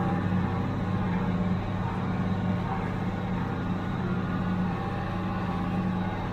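1976 International Harvester 886 tractor's six-cylinder diesel engine running steadily under load while pulling a small square baler, with an even, unchanging hum.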